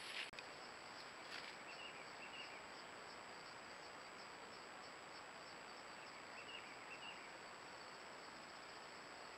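Faint steady buzzing of insects in forest, with a brief rustle right at the start and a few soft short chirps, twice in pairs.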